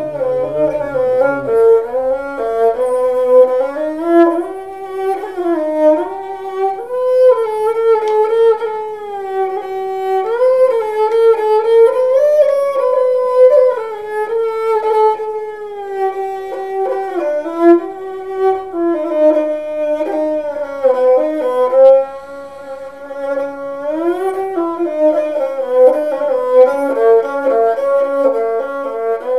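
Violin playing an Oriental-style melody with frequent slides between notes, often sounding two notes together.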